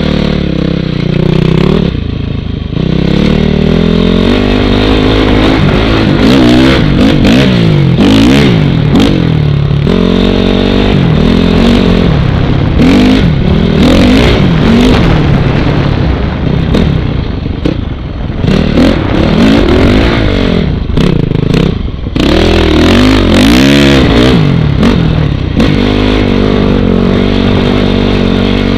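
A 2006 Honda CRF450R's four-stroke single-cylinder engine, breathing through an FMF full exhaust system, revving up and falling off again and again as the throttle is worked through the sand. Wind buffets the microphone in gusts.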